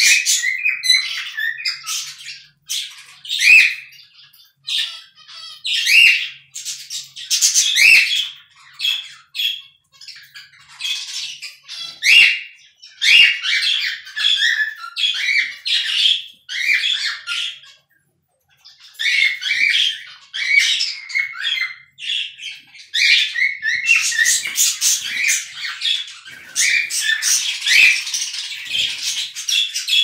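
Charcoal cockatiel whistling and chirping: a busy string of short, high calls mixed with gliding whistles, broken by a brief pause a little past the middle.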